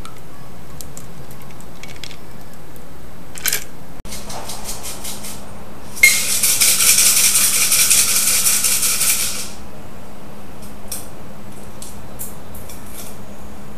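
A cocktail double-strained from a metal shaker through a fine strainer into a glass: ice and metal clinks and rattles, loudest in a dense rattle of about three seconds midway, with scattered light clicks around it.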